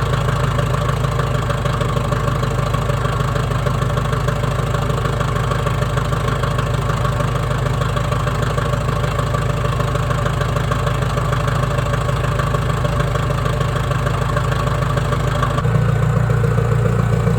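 Komatsu D57S-1 track loader's diesel engine idling steadily, warming up just after a hard cold start. Near the end its low rumble becomes louder and fuller.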